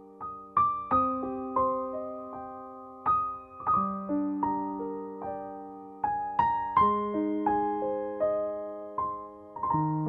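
Background music of slow, gentle solo piano: single notes and chords struck about every half second to a second, each ringing out and fading.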